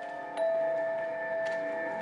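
Background music: long, held bell-like notes, with a new note struck about half a second in that rings on.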